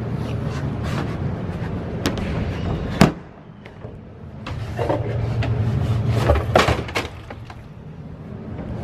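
Recycling being handled and dumped into a bin, with a loud crash about three seconds in and more clattering knocks a few seconds later, over a steady low rumble.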